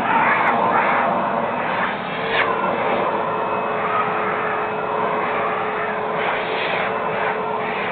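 Vacuum cleaner running steadily as its hose nozzle is drawn through a short-coated dog's fur, the pitch rising and falling a few times, near the start, about two and a half seconds in and again around six seconds in.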